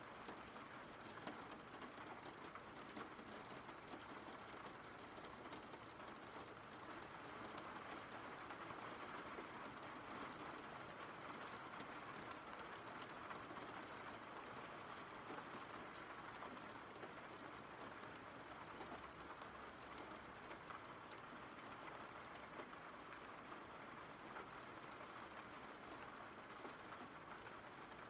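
Faint, steady rain falling, an even hiss of rain with scattered small drop ticks.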